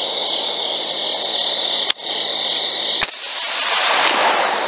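Steady static hiss of a thermal rifle scope's recording, broken by two short sharp clicks a little over a second apart, about two and three seconds in; after the second the hiss changes.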